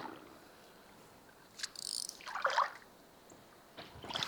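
A few brief, faint water sounds, small trickles and splashes, about a second and a half in and again near the end.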